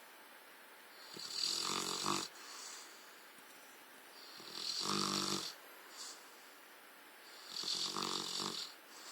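Rottweiler snoring: three snores about three seconds apart, each about a second long.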